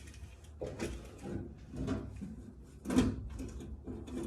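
Hard objects being handled: a run of knocks and rattles, with the loudest knock about three seconds in.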